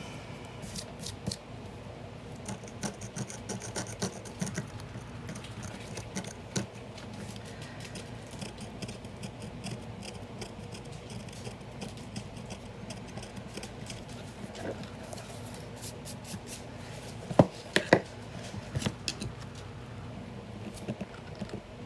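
A small tool picking and scraping at an old book's spine binding, giving scattered scratches and light clicks, with two sharper clicks close together about three-quarters of the way through.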